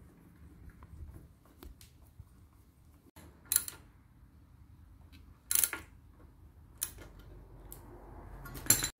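A few short, sharp metallic clicks and scrapes from hand work on a motorcycle speedometer cable fitting and a small hand tool, spaced irregularly about a second or two apart, the longest scrape about halfway through.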